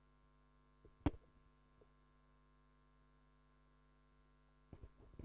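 Steady electrical hum in a quiet room. One sharp knock comes about a second in, and a few softer knocks follow near the end.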